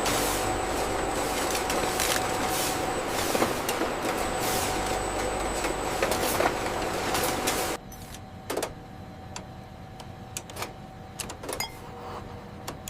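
Loud, steady hiss of rushing air from factory machinery, with a faint high whistle and a low hum under it. It cuts off suddenly about eight seconds in, leaving a quieter machine hum with scattered light clicks.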